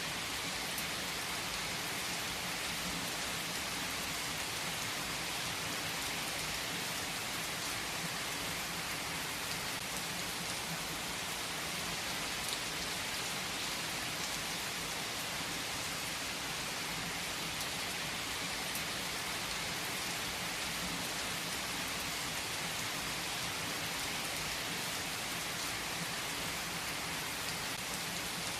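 Steady rain falling: a continuous, even hiss with no change in level, with a few faint sharp clicks now and then.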